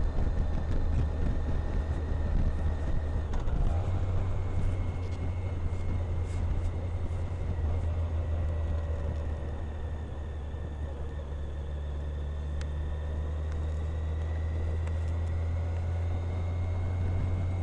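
Touring motorcycle engine running at a steady, low road speed, a continuous low drone, with wind and road noise over it.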